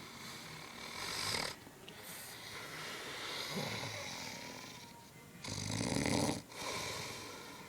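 A sleeping man snoring: long, noisy breaths, with a louder and deeper snore about five and a half seconds in and another right after it.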